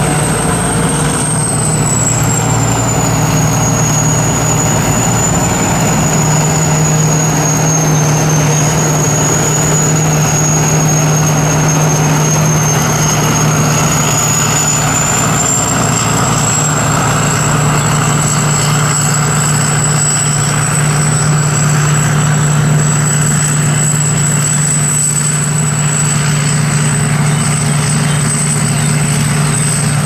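Sakpattana KM-D 4.1 rice combine harvester running steadily as it cuts and threshes rice. Its 225 HP turbocharged diesel engine gives a constant low drone, with a thin high whine above it that sags slightly in pitch a few seconds in and then comes back up.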